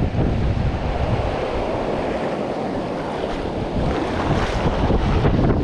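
Fast-flowing river rushing over rapids, with wind rumbling on the microphone.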